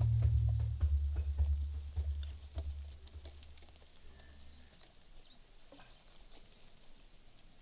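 Soundtrack music fading out: a low drone under evenly spaced percussion hits that die away over the first three seconds, the drone stopping about five seconds in. After that only faint outdoor ambience with a few scattered small clicks.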